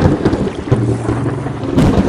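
Thunder rumbling over steady rain, with a new peal of thunder breaking in suddenly near the end.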